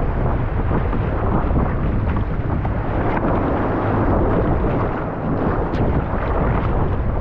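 Gale-force wind buffeting the microphone: a loud, steady, gusty rumble.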